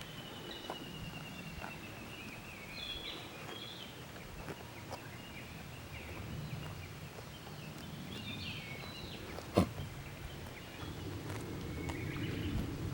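Outdoor ambience with a low steady rumble and short, high chirping calls, like small birds, at times. A single sharp knock stands out about three-quarters of the way through.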